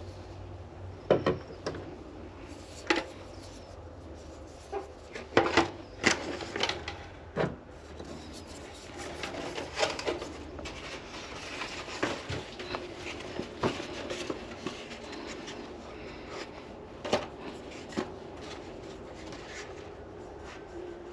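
Chicken eggs being handled and set into egg cartons: irregular light taps and clicks of eggshell against the clear plastic carton, with a few sharper knocks about a second in and again around five to seven seconds in.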